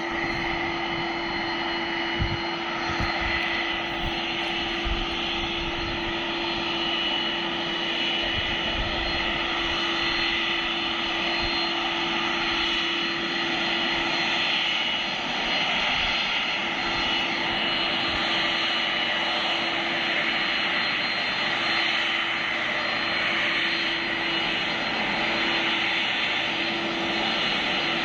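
Boeing 767-300 jet engines running steadily: a continuous rushing drone with a steady low hum and several steady high whines.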